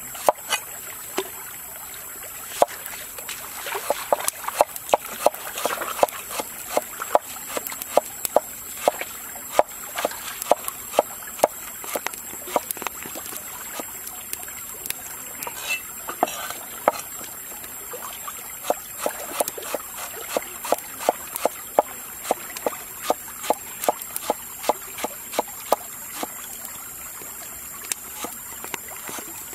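A cleaver slicing green tomatoes on a thick wooden chopping board: a long run of sharp knocks as each stroke hits the board, about two a second, with a couple of short pauses.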